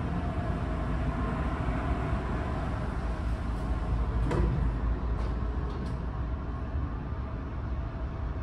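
Steady low rumble of the car ferry underway. About four seconds in, a wave-to-open automatic sliding glass door opens with a single knock, followed by a few light clicks.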